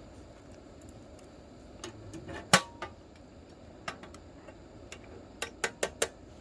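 Scattered sharp clicks and knocks of cooking utensils and dishes being handled: one louder knock with a brief metallic ring about two and a half seconds in, and a quick run of four clicks near the end.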